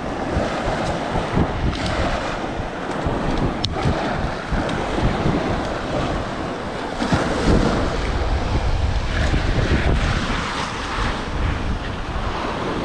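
Small surf washing up onto a sandy beach, with wind buffeting the microphone and gusting harder about seven seconds in.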